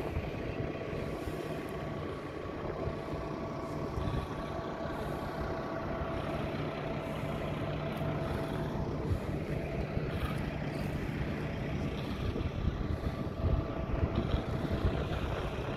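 Road train truck's diesel engine running steadily, a constant hum over an uneven low rumble.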